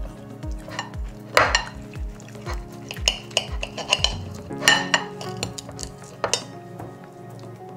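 Steel knives and forks scraping and clinking on ceramic plates as grilled sausages are cut, loudest about a second and a half in and again near five seconds, over background music with a steady beat.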